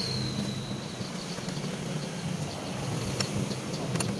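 Steady low mechanical hum, with two sharp clinks near the end as a metal carburetor part is set down among tools in a plastic basin.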